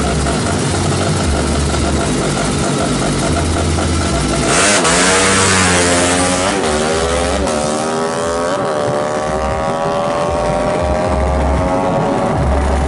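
Drag-race motorcycles, a Yamaha Jupiter MX bored up to 200 cc and its rival, running at the start line, then launching about four and a half seconds in with a loud rush of noise. Their engines climb in pitch through the gears, dipping briefly at three shifts, and keep rising steadily as the bikes run down the strip.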